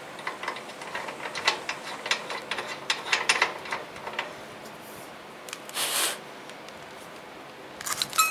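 Light metal clicks and taps as a nut is fitted by hand onto a generator's wheel axle. There is a short rustle about six seconds in and a few clinks near the end.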